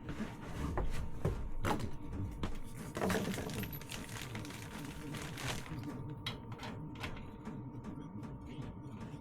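Irregular sharp clicks and light knocks of hand tools and metal fittings being handled while an oil hose is fitted, most frequent in the first six seconds. A faint steady whine runs underneath.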